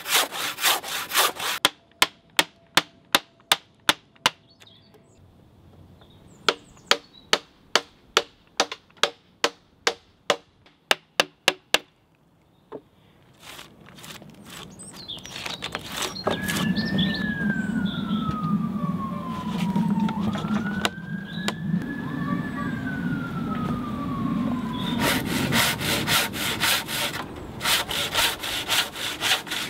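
Handsaw cutting into a green oak log, then two runs of sharp, evenly spaced mallet blows on a chisel, about two a second. Midway an emergency-vehicle siren wails twice over a low traffic rumble, and the sawing starts again near the end.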